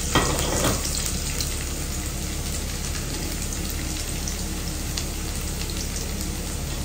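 Chopped garlic frying in hot oil in a shallow pan for a tadka: a louder burst of sizzling in the first second, then a steady sizzle with scattered light crackles.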